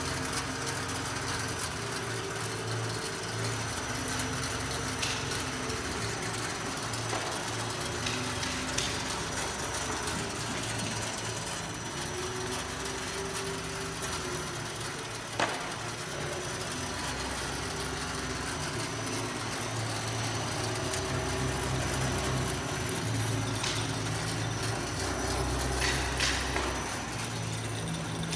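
Textile cone winding machine running, its electric drum motors and grooved traverse drums humming steadily with a low tone that swells and fades. A few sharp clicks come through, the clearest about halfway through.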